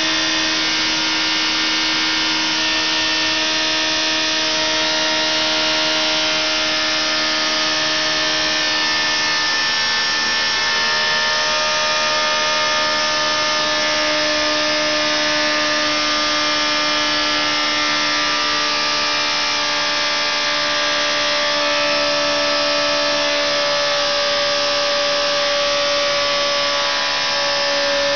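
Engine running at a steady speed on a dynamometer, heard inside the test cell: a loud, even mechanical din with a steady whine that drops slightly in pitch a couple of times.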